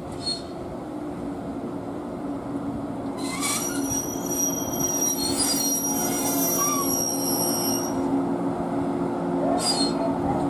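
JNR 115-series (1000 subseries) electric multiple unit pulling slowly into a station and braking to a stop: a steady low hum under high-pitched brake squeal from about three to eight seconds in, with a short hiss near the end.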